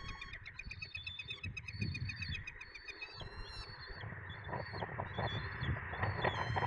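Small wild songbirds singing around the nest tree: rapid runs of repeated high notes and short trills, over a low steady rumble.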